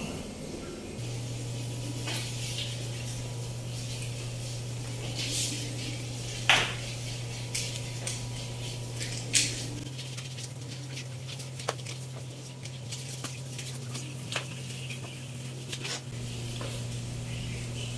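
Soft grass broom swishing across a tiled floor, with scattered clicks and knocks from a long-handled plastic dustpan on the tiles. A steady low hum runs underneath, starting about a second in.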